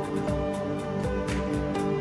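Background music with a steady beat under held, sustained notes.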